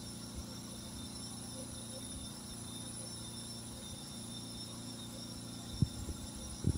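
Steady electrical hum with several thin, high-pitched whines from a machine idling in standby. A few short knocks come near the end as the control-panel buttons are pressed and the unit starts shutting down.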